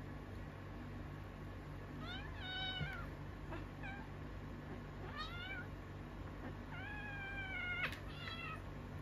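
Kitten mewing about five times while play-wrestling with another kitten. The cries are short and high, and the longest, slightly falling one comes near the end.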